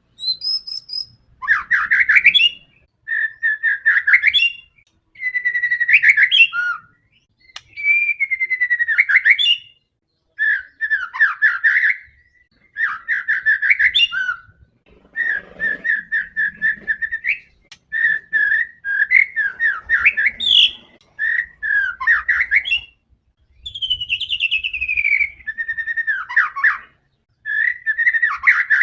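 White-rumped shama in full, aggressive song: a run of short, varied whistled phrases, each a second or two long, with brief pauses between them, some gliding down and some in quick repeated notes.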